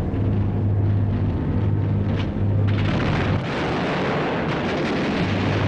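Bombing-raid sound effects: a steady low engine drone under booming explosions, which thicken into a dense continuous rumble about three seconds in.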